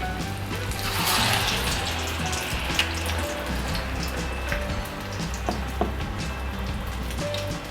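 Corn vadas sizzling as they deep-fry in hot oil, the hiss swelling about a second in, over background music.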